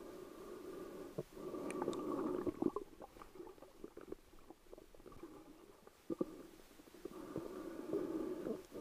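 Muffled underwater noise heard through a camera's waterproof housing: water moving around the housing swells up twice, each time for about a second and a half, with scattered small clicks and knocks in between.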